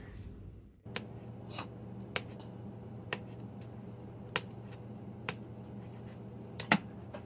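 Knife slicing jalapeños on a cutting board: separate sharp taps at uneven intervals, about one a second, the loudest near the end, over a steady low hum.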